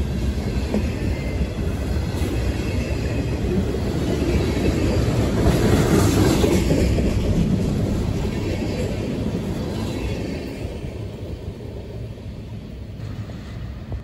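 Norfolk Southern freight train's tank cars and boxcars rolling past at close range, steel wheels running on the rails in a steady rumble. The sound fades over the last few seconds as the end of the train moves away.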